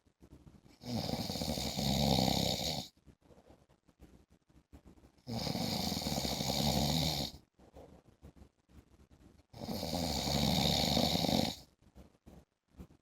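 A man snoring in a regular rhythm: three snores about four seconds apart, each lasting about two seconds, with a fluttering low rattle and a hiss.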